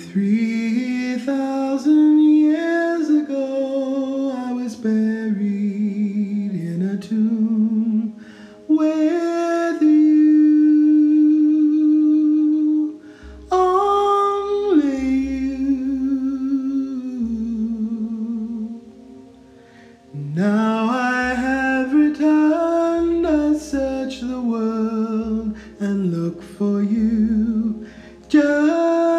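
A solo voice singing a slow melody in a high register, without clear words: long held notes that waver, in phrases with brief breaks between them.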